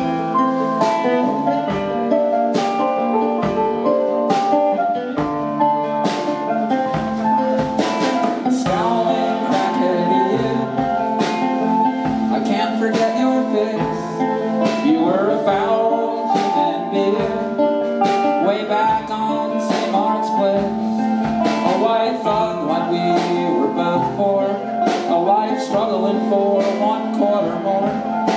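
Live rock band playing an instrumental passage: strummed guitar, bass and a drum kit keeping a steady beat.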